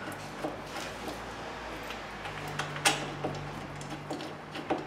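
Light metallic clicks and taps as a brake caliper mounting bracket is held against the rotor and its bolts are caught and started by hand, with one sharper click about three seconds in. A low steady hum runs underneath and gets louder about halfway through.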